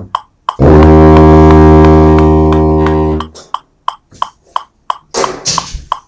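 Low brass horn holding one low final note for about three seconds, fading out at the end. A metronome ticks steadily, about three clicks a second, through and after the note. A short burst of rustling noise comes near the end as the instrument is lowered.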